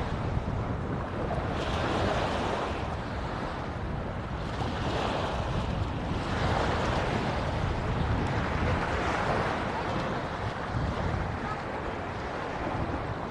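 Small sea waves breaking and washing up on a sand-and-stone shore, surging about every two seconds, with wind rumbling on the microphone.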